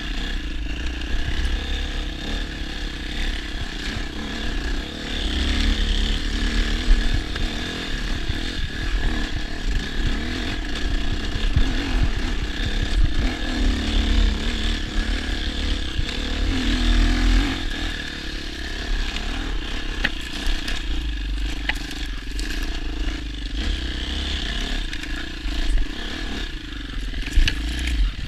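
New 2023 KTM EXC enduro motorcycle engine running in, its revs rising and falling with the throttle while riding an off-road trail.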